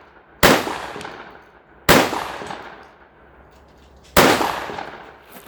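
Three shotgun shots, the second about a second and a half after the first and the third about two seconds later, each trailing off with echo.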